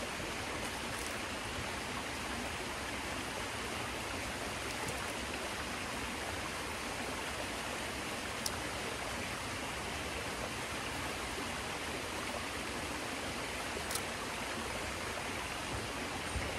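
Small woodland waterfall cascading over rocks into a creek: a steady rushing of water. Two faint clicks come through it, one about halfway through and another about six seconds later.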